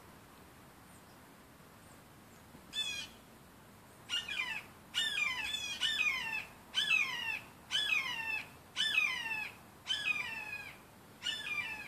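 A perched hawk calling repeatedly: one lone call, then a run of about nine more at roughly one per second, each call falling in pitch.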